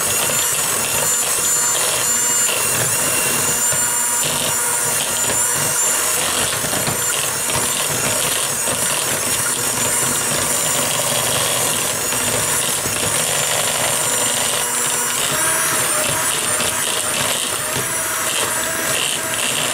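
Electric hand mixer running steadily, its beaters creaming butter, brown sugar and eggs into cake batter, with a steady high motor whine and the beaters knocking in the bowl now and then.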